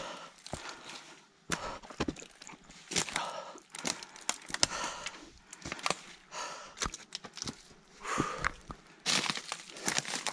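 Footsteps crunching irregularly over dry pine needles, twigs and sticks on a forest floor, with sharp snaps and cracks among them.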